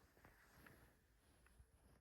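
Near silence: faint room tone with a few soft, brief clicks.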